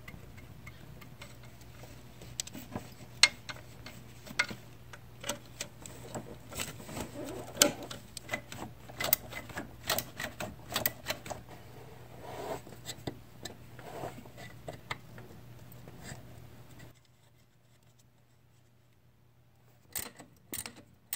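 Hand ratchet clicking in short runs, with metal tool clatter, as the nut is run down on the alternator's positive output stud. A faint low hum runs underneath. The sound cuts off about three-quarters of the way through, and a couple of clicks follow near the end.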